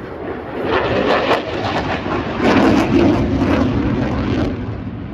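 Eurofighter Typhoon flying overhead, the noise of its twin EJ200 turbofan jet engines. The noise swells about half a second in, is loudest near the middle and eases a little near the end.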